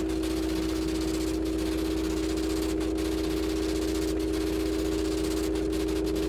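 A steady electronic drone, a constant low hum under a wash of static hiss, with the hiss briefly dropping out a few times.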